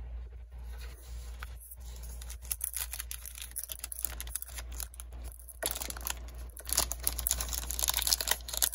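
Foil wrapper of a Panini Prizm trading card pack being pulled open: a few light handling clicks, then a dense run of crinkling and tearing crackles that grows louder from about halfway, the seal held by what looks like extra glue.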